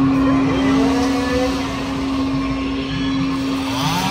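Chainsaw engine revving up twice, once about half a second in and again near the end, over a steady hum.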